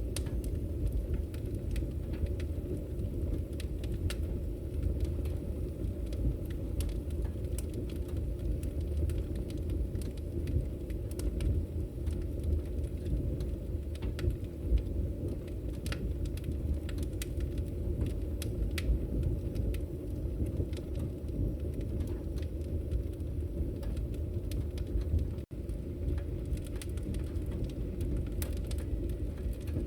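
Wood fire burning, a steady low rumble of flames with scattered sharp crackles and pops of the firewood.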